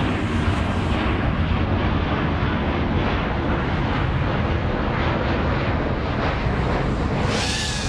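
5-inch racing quadcopter with Foxeer Datura 2206 2700kv motors in flight: a steady rush of motor, prop and wind noise, with a brief whoosh near the end.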